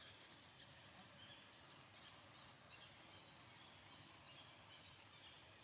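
Near silence: faint outdoor background hiss with scattered, faint high chirps.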